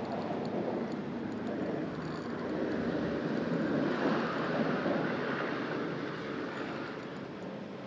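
A passing vehicle's rumble, swelling to its loudest about four or five seconds in and then fading away.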